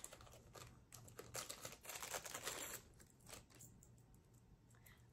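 Faint crinkling and rustling of small packaging being handled and opened, in a cluster of soft crackles from about a second in to just under three seconds in.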